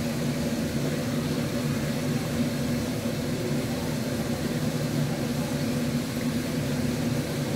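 Steady hum and hiss of an electric fan running.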